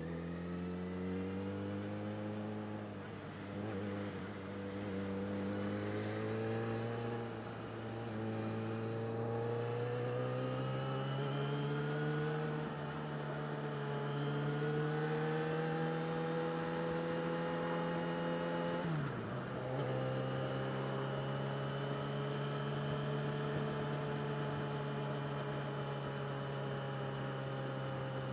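Yamaha XJ6's 600 cc inline-four engine pulling under way, its pitch climbing slowly as the bike gains speed. About nineteen seconds in it drops sharply, as at an upshift, then holds a steady, slightly lower pitch at cruise.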